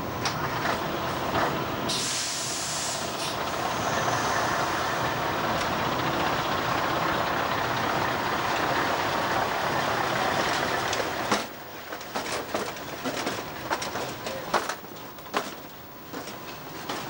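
Sugar beets tipping off a truck into a reception chute. A short air hiss from the truck comes about two seconds in, then the beets make a steady rushing rumble as they slide off. This cuts off about eleven seconds in and gives way to scattered knocks as the last beets tumble down.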